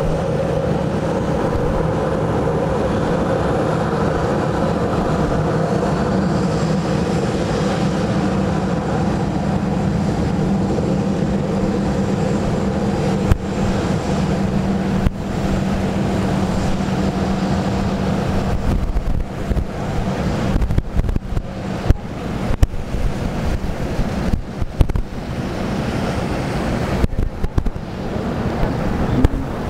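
Boeing 737's jet engines running at taxi power, a steady hum with a whine over it. About two-thirds of the way through the engine tone fades and gusts of wind buffeting the microphone take over, with sharp knocks.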